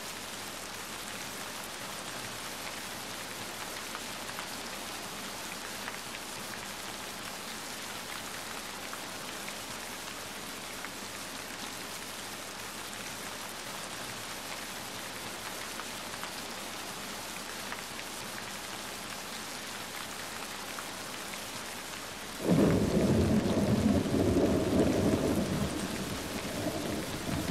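Steady rain hiss, then about 22 seconds in a sudden, loud low rumble of thunder that slowly fades.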